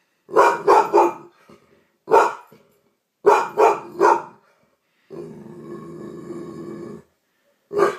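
Yellow Labrador retriever barking at its own reflection, taking it for another dog: three quick barks, a single bark, three more quick barks, then a low growl of about two seconds and one last bark near the end.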